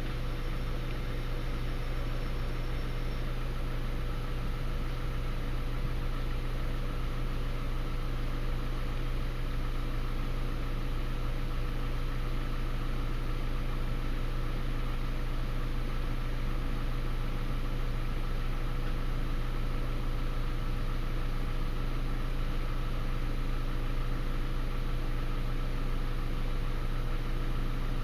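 A steady low hum with an even hiss, unchanging throughout, with no thunderclap or other sudden sound.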